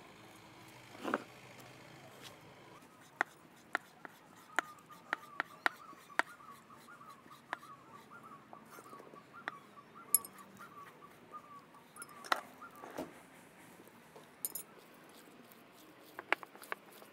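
Chef's knife chopping bacon on a wooden cutting board: irregular sharp taps of the blade striking the board. A faint wavering high tone sounds in the background through the middle.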